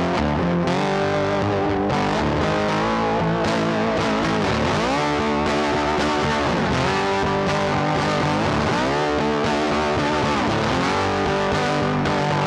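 Background music: a rock track with distorted electric guitar and bass at a steady beat.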